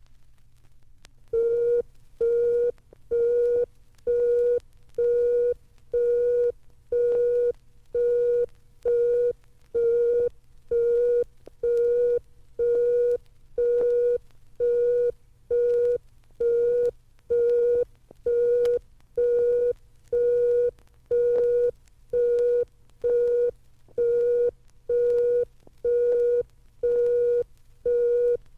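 Electronic science-fiction sound effect: a steady-pitched buzzy beep pulsing on and off about once a second, over a low hum.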